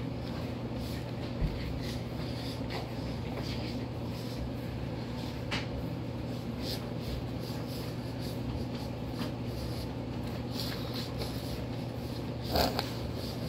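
Room tone: a steady low hum, with a few faint ticks and a brief rush of noise about a second before the end.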